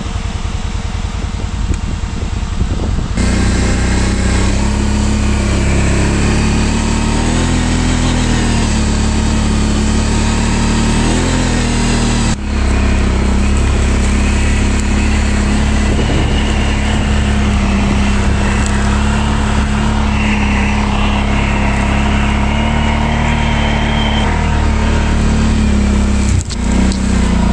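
Kawasaki Brute Force ATV's V-twin engine running under load as it drives through deep snow, the tyres churning snow. The engine steps up to a loud, steady drone about three seconds in.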